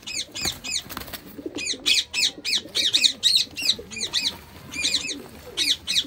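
Small birds chirping shrilly in quick runs of short repeated notes, the loudest sound, over faint pigeon cooing and the flutter of pigeons in a wire cage as a hand reaches in among them. A single sharp click comes about a second in.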